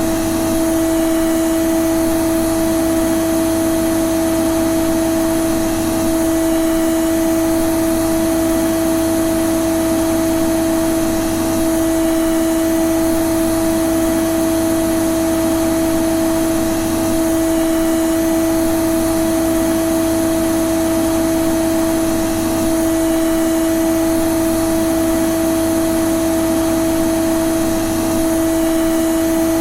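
Vacuum cleaner running steadily: a loud, constant motor drone with one strong pitch over an even rush of air, unchanging throughout.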